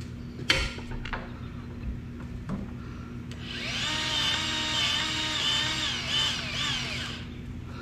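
Milwaukee M12 cordless grease gun's motor running for about four seconds, pumping grease into a pivot joint's grease fitting; its whine rises as it starts and falls off as it stops. A sharp click about half a second in.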